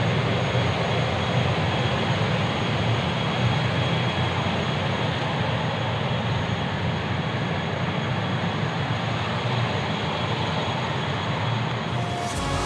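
Steady drone of a parked turboprop airliner's engine, with a thin high whine held above it.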